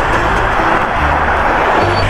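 Background music with a bass line that changes note every half second or so.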